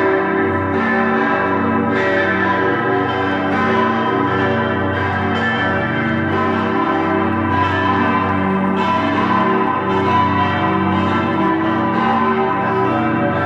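Full peal of six Grassmayr-cast church bells tuned G, A, B (German H), D, E and G, from a 5.8-tonne bass bell down to a 608 kg treble, all ringing together. Strikes overlap continuously over a dense bed of lingering bell tones.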